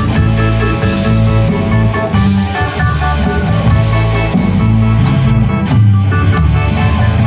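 A rock band playing live without vocals: electric guitar chords over a heavy bass line and a drum kit with cymbal hits.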